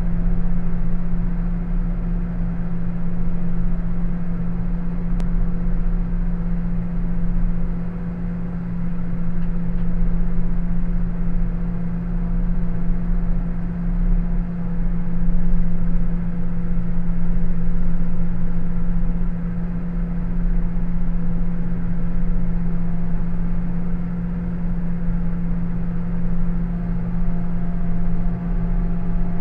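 Fendt combine harvester's diesel engine running steadily while the machine drives along the road, a constant loud drone with a strong steady hum.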